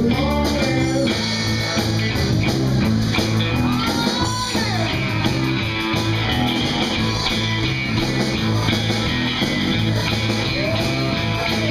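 Live band playing: electric guitar lead over bass and drums in a steady groove, with a few sliding notes.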